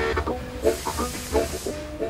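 Steam from a steam train hissing, starting about half a second in and lasting about a second, over short repeated notes of music.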